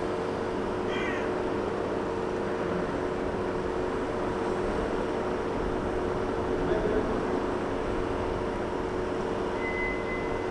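A steady machine drone with a constant hum, a brief high squeak about a second in and a short high whistle-like tone near the end.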